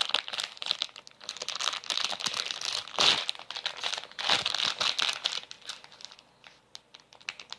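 Plastic squishy-toy packaging crinkling and being torn as it is pulled open by hand, with dense irregular crackling that thins out near the end.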